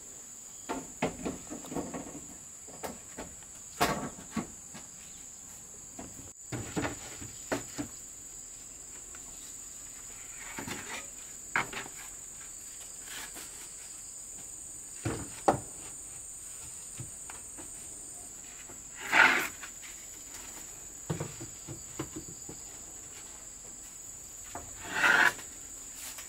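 A steady high-pitched drone of insects, with scattered knocks and scrapes of wooden planks and a pole against a bamboo floor frame. The loudest are a scrape about nineteen seconds in and another near the end.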